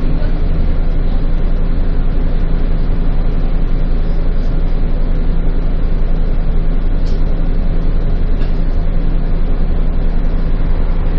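A bus engine running steadily, heard from inside the bus during the ride, with a constant low hum and road noise.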